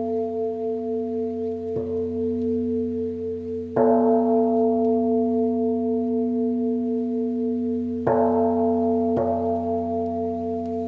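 Bowl bell struck four times, two soft strikes and two hard ones, over a steady ringing tone that wavers in a slow pulse and rings on between strikes.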